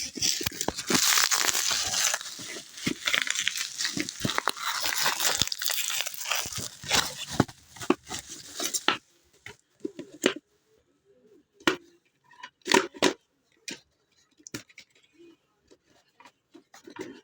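Watch packaging being torn open and crinkled for about nine seconds, then a few separate clicks and light knocks.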